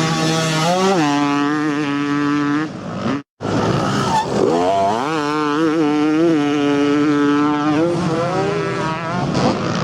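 Two-stroke motocross bike engine revving up and holding at high revs for a couple of seconds. It cuts off abruptly for a moment, then climbs again to a held high-rev whine before dropping back.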